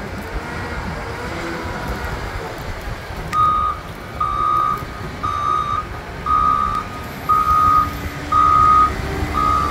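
Snow-plowing wheel loader's engine running, then about three seconds in its reversing alarm starts beeping: one high steady beep about once a second, louder than the engine.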